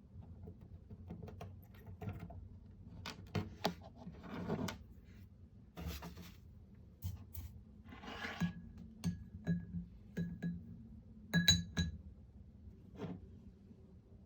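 Scattered small clicks, clinks and short scrapes of tools and small parts being handled during a mouse micro switch replacement, several of the clinks ringing briefly, the loudest a little past the middle.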